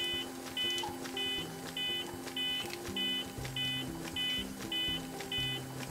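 Steady electronic beeps at about 100 a minute, each a short high chord: a CPR metronome pacing chest compressions. Soft background music with a slow bass line plays under it.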